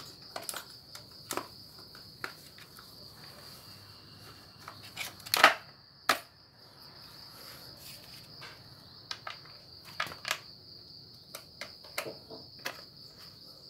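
Scattered clicks and knocks of plastic and metal parts and a screwdriver being handled while fitting the throttle cable and shroud onto a small two-stroke brush cutter engine, with one louder clack about five seconds in. A steady high chirring of crickets runs underneath.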